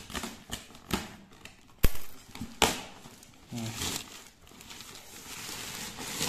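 White plastic Flipkart courier bag rustling and crinkling as hands work a shoe box out of it. There are several sharp snaps or knocks, the loudest about two seconds in, then a longer rustle over the last three seconds.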